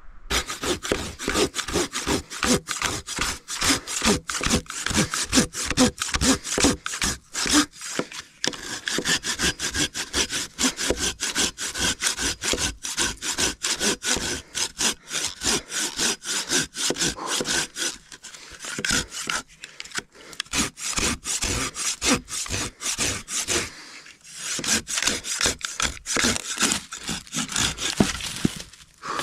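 Hand saw cutting through a log in quick back-and-forth strokes, the teeth rasping steadily through the wood, with a few brief pauses.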